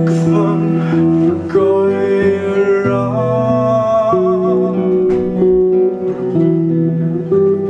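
Unplugged band performance: two acoustic guitars playing slow ringing chords while a male singer holds long notes with vibrato through the middle, then drops out near the five-second mark as the guitars carry on.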